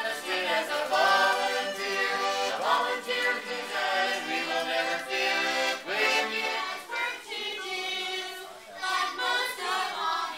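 An accordion playing a tune while a small group sings along.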